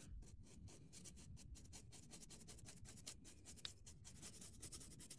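Paintbrush scrubbing back and forth over 2 mm construction card, blending pastel-chalk weathering powder into the scored stone flags. Faint, quick strokes at about four a second.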